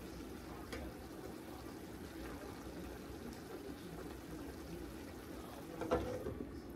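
Pepper steak with green peppers, onions and mushrooms simmering in liquid in a cast iron skillet, bubbling steadily while a plastic spoon stirs it, with a faint click about a second in. Near the end a glass lid clanks down onto the skillet, the loudest sound.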